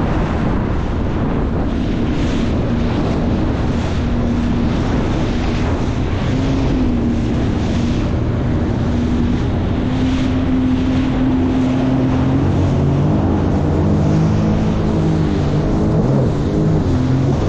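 Motorboat engines running at speed on open water, a steady hum with water rushing and wind buffeting the microphone. From about twelve seconds in, a second set of engine tones joins and wavers in pitch as another fast boat draws near.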